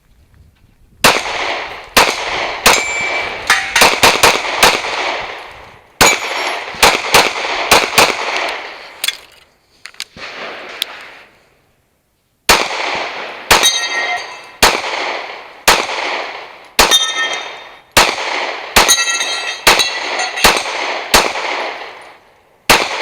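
A long string of handgun shots fired in quick pairs and runs, each with a short echo, broken by a pause of about two seconds midway. Several hits are followed by a metallic ring from steel targets being struck.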